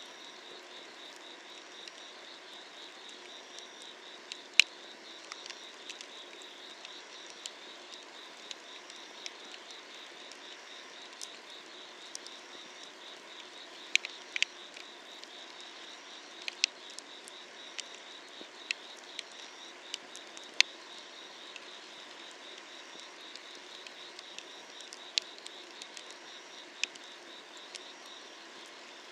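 Wood fire burning, with sharp crackles and pops at irregular moments, the loudest about four seconds in and again around fourteen and twenty seconds. Underneath, night insects chirp steadily in a fast, even pulse.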